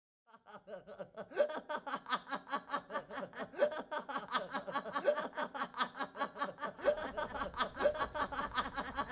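A person laughing in a rapid, even giggle of about six short bursts a second, with a rising note every second or two.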